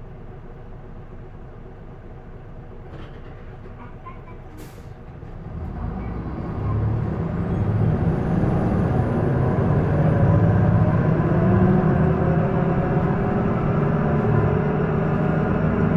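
Isuzu Erga PDG-LV234L2 city bus from inside: its straight-six turbo diesel idles, then after a short sharp hiss about five seconds in it accelerates hard, getting much louder and rising in pitch. A thin high whistle rises and fades during the pull. The recordist says this bus has developed an abnormal noise.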